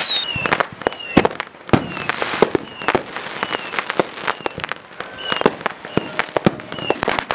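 Many consumer fireworks going off at once: an irregular string of sharp bangs and pops, overlaid by several whistling fireworks, each a high whistle that falls in pitch.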